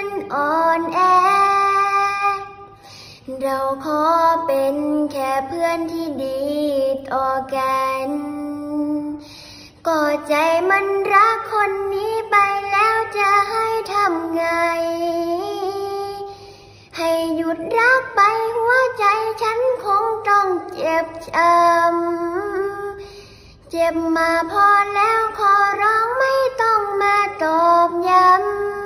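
A young girl singing a song solo, in long phrases of held, sliding notes, pausing briefly for breath every six or seven seconds.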